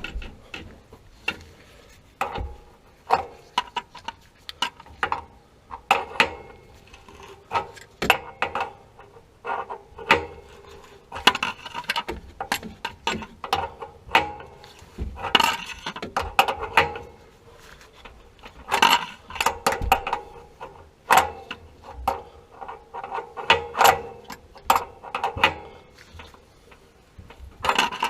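Irregular sharp metallic clicks, clanks and knocks of hand tools and metal plumbing parts being handled while working on a water heater's supply-line fittings.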